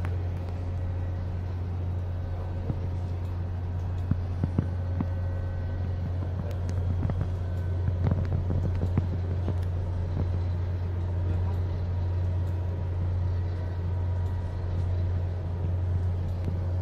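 Steady low hum of ship machinery, with faint steady higher tones and scattered light clicks over it.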